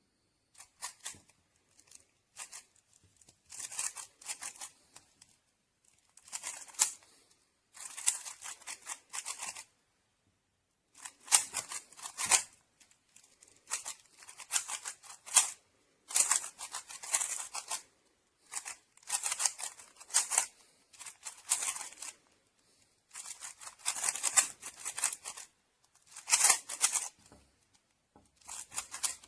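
GAN 11M Pro magnetic 3x3 speed cube being turned fast by hand: bursts of rapid plastic clicking turns, each a second or two long, broken by short pauses.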